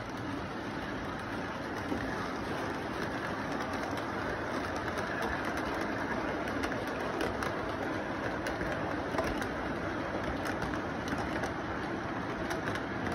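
Model train freight cars rolling past on the track: a steady rumble of wheels with light clicking.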